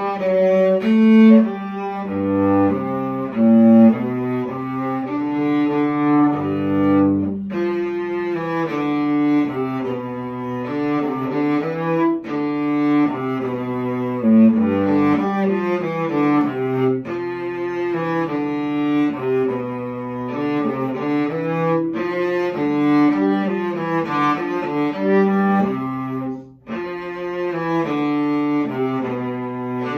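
Cello bowed in a flowing line of sustained notes, the harmony part of a cello duet, with a brief break in the sound near the end.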